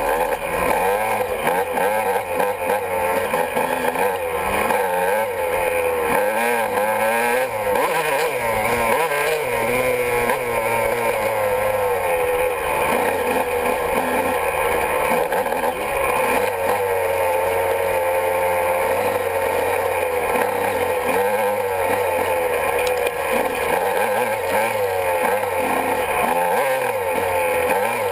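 Honda CR125 single-cylinder two-stroke dirt bike engine under way, its pitch rising and falling constantly as the throttle is worked.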